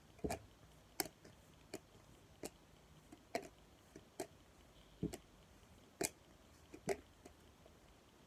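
Trading cards being flipped one by one onto a pile: a sharp papery tap about once a second, nine or so in all, at an uneven pace.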